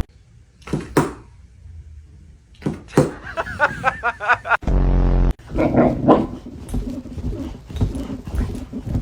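A dog whining in wavering, high-pitched cries, with more dog vocal sounds in the second half. A short, loud buzzing tone cuts in a little before the middle.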